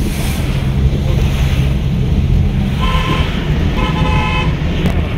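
A steady low engine drone with wind noise, over which a vehicle horn sounds twice: a short toot about three seconds in, then a slightly longer one just after.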